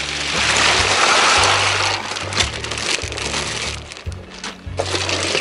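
Ice cubes pouring out of a plastic bag into a plastic tub of water: a loud rattling rush in the first two seconds, then scattered clacks and knocks. Background music with a steady bass line plays underneath.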